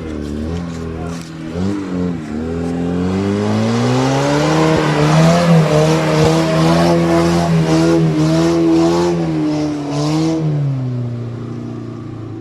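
An off-road vehicle's engine revving hard: the revs wobble, climb over the first few seconds, stay high and uneven under load, then drop back to a low idle about ten seconds in.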